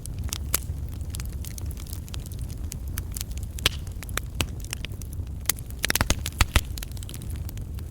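Wood campfire burning: logs crackling with irregular sharp pops over a steady low rumble, and a quick cluster of louder pops about six seconds in.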